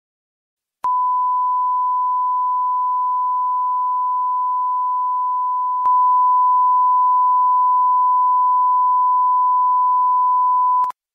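A steady electronic sine tone at about 1 kHz, the kind used as a broadcast test or line-up tone, lasting about ten seconds. It starts about a second in, has a faint click and a slight rise in level about six seconds in, and cuts off suddenly near the end.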